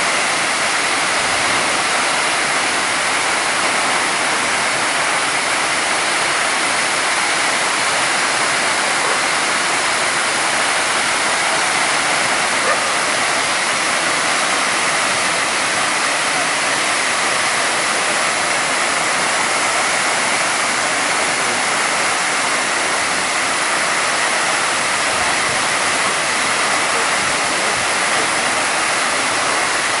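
Tall freefall waterfall plunging into a pool: a loud, steady rush of falling water that does not change.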